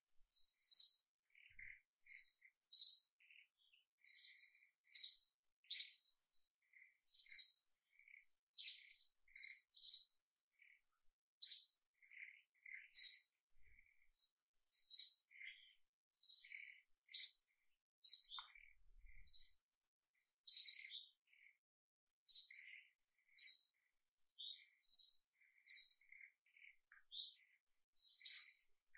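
Small bird chirping: short, high chirps repeating about once a second, with fainter, lower calls in between.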